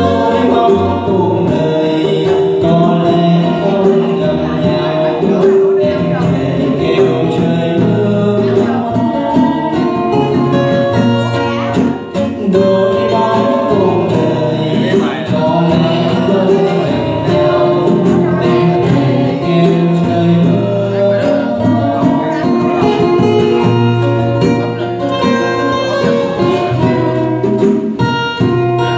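A man singing a slow Vietnamese bolero, backed by a steel-string and a nylon-string acoustic guitar and hand percussion.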